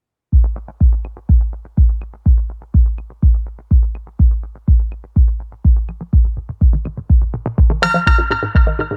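Electronic background music: a heavy kick drum on a steady beat, about two a second, with synth chords coming in near the end.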